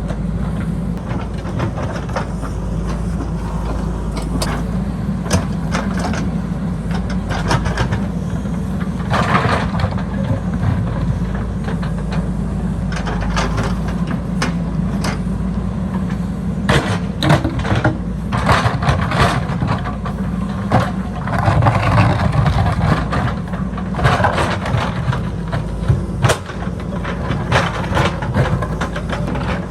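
JCB backhoe loader's diesel engine running steadily under work, with frequent short knocks and clanks, more of them in the second half.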